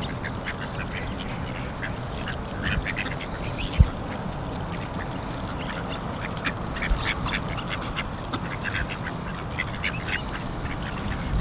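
A flock of mallards quacking and calling in many short, overlapping calls. A low thump sounds about four seconds in.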